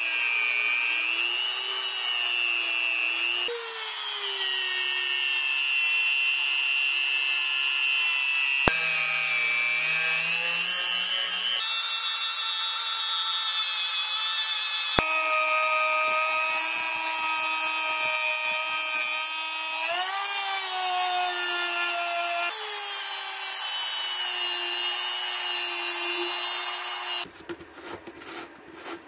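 Dremel rotary tool spinning a felt polishing wheel against a steel hammer head: a steady high motor whine whose pitch dips and shifts as the wheel is pressed on. The whine stops about a second and a half before the end, leaving a few light knocks.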